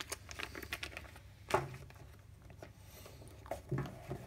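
Clear plastic parts bags crinkling and rustling as they are handled, with light scattered taps of small cardboard boxes and parts; one sharper knock about a second and a half in.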